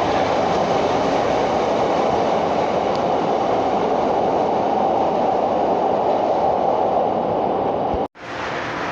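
CTA "L" rapid-transit train running on the rails, a loud steady rumble and rush of wheels and motors. About eight seconds in it cuts off abruptly and comes back as a quieter train noise.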